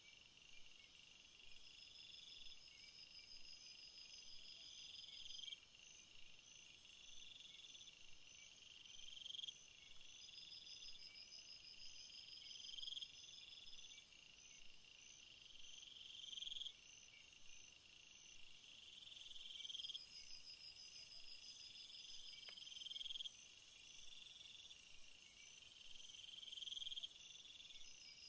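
Insect chorus: faint high trilling calls repeating every second or two over a steady high whine. A brighter, louder high buzz joins a little past halfway and cuts off near the end.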